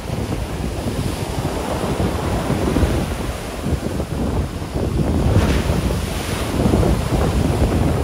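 Ocean surf breaking and washing ashore, with wind buffeting the microphone in a loud, gusty rumble. A wave's hiss swells about five seconds in.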